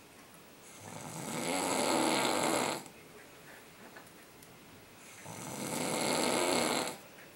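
A man snoring in his sleep: two long snores about four seconds apart, each swelling and then stopping abruptly.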